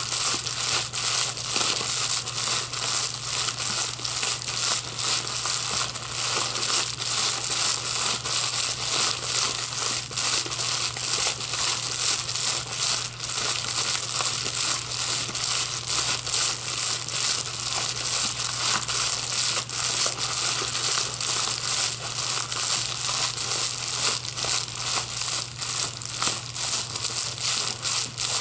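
Plastic packaging crinkled and crushed by hand: a dense, continuous crackle with no pauses.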